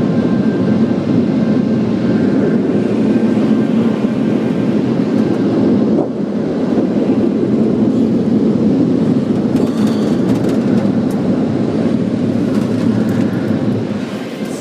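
Automatic car wash machinery working over the truck, heard from inside the cab: a loud, steady noise of water spray and brushes or blowers on the body, with a few light clicks and rattles, easing off near the end.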